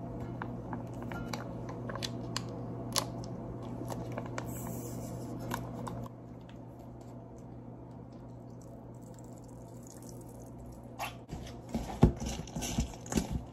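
Dressing squeezed out of a plastic packet over salad, with small crinkles and clicks, then the salad being mixed in a stainless steel bowl, with knocks and thumps against the metal starting near the end.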